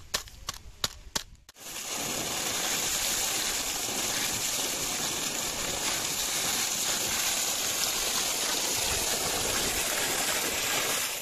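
A few sharp knocks as jaggery in a plastic bag is pounded, then from about a second and a half in, water gushing steadily from an irrigation pump's outlet pipe and splashing over hands and ground.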